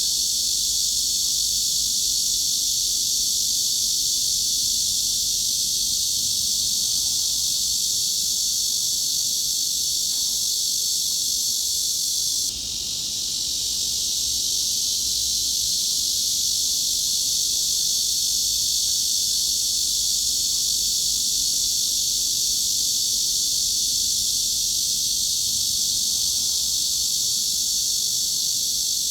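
Cicadas buzzing in a steady, unbroken high-pitched drone, strongest around 4 kHz and above, played as a continuous masking sound. About twelve seconds in it drops a little and swells back over a couple of seconds.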